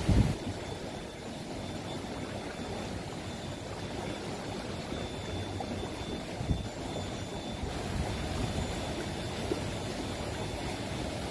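River water flowing steadily, a continuous low rushing noise. Two short low thumps stand out, one just after the start and one about halfway through.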